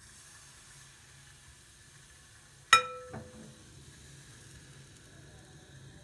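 Crepe batter sizzling faintly in a hot non-stick pan. About three seconds in, a metal kitchen utensil strikes with a sharp clank that rings briefly, followed by a lighter knock.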